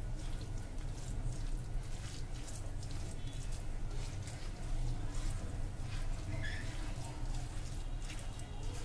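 A hand squishing and mixing grated vegetables with semolina and curd in a glass bowl: soft wet squelching and rustling over a steady low hum, with a brief high chirp about two-thirds of the way through.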